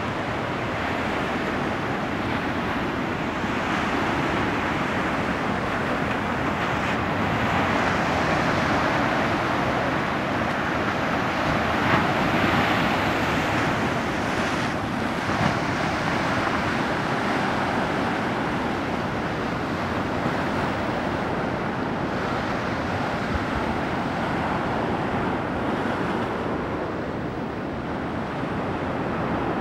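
Surf breaking and washing up a sandy beach among rocks: a steady rush of water that swells loudest about twelve seconds in.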